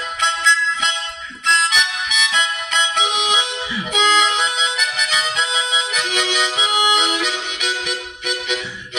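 Harmonica played into a microphone: a melody in chords, several reedy notes sounding together and changing quickly, with brief breaks about a second and a half in and near the end.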